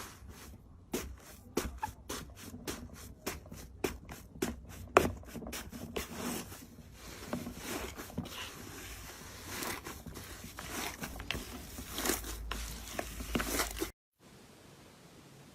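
Slime being pressed and squeezed by hand, giving a run of sharp clicking pops, a few each second, that turns into a denser crackle; it cuts off abruptly about 14 seconds in, leaving a faint hiss.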